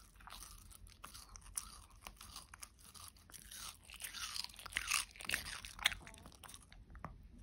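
A Shih Tzu biting and chewing a thin slice of watermelon held in a hand, with quick, irregular crunches and a short pause near the end.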